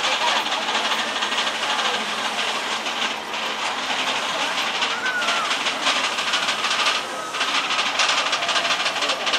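Vekoma mine-train roller coaster running on its track: a steady rushing noise with irregular wheel clatter.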